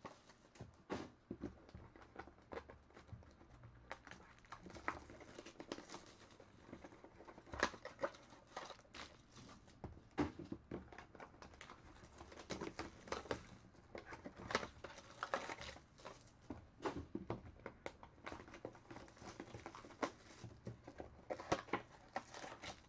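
Plastic-wrapped trading-card packs and a cardboard card box being handled and opened, quiet crinkling and rustling in irregular spells with small clicks and taps.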